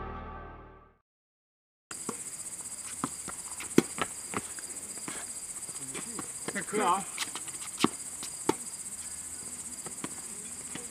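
Background music fades out, and after a short silence crickets chirr steadily in a high, finely pulsing band. Over them come a few scattered sharp knocks of tennis balls being hit, and a brief voice about seven seconds in.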